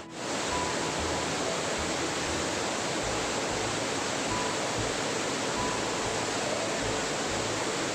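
Fast-flowing river water rushing over a waterfall, a steady, even rush of water noise.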